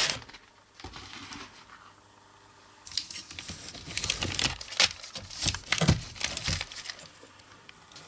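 Paper rustling and crinkling as a hand handles kraft-paper-wrapped firework ball shells in a cardboard box. There is a brief rustle about a second in, then a longer run of crinkling from about three seconds in, with a couple of dull knocks.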